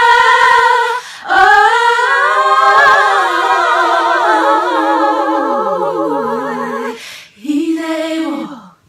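One woman's voice multi-tracked into a layered a cappella gospel harmony, several parts holding chords with vibrato. The lower parts slide downward, then a short final chord is sung and dies away near the end.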